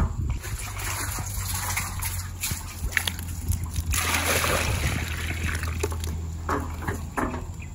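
Water splashing and sloshing as a plastic bucket is hauled up on a rope from a freshly dug, concrete-ringed well and poured into another bucket; the pour is loudest about four seconds in.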